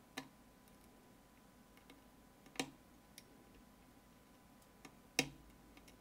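Three sharp metallic clicks about two and a half seconds apart, the last the loudest, with a few faint ticks between them: lock picks and a lock being handled during lock picking.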